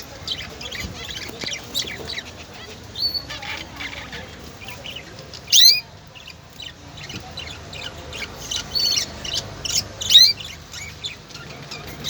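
Small songbirds chirping and calling together in a rapid string of short high chirps, with two louder calls rising in pitch, one about halfway through and one near the end.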